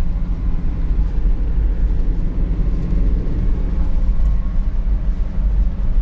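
Car driving, a steady low rumble of engine and road noise.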